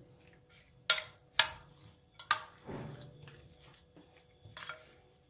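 Metal fork clinking against a glass mixing bowl while stirring a wet tuna, herb, cheese and egg filling: a few sharp clinks in the first two and a half seconds, a softer one near the end.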